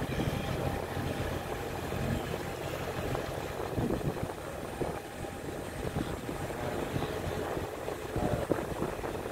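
Safari vehicle's engine running steadily as it drives slowly over a washboard dirt track, with several short knocks and rattles from the bumps.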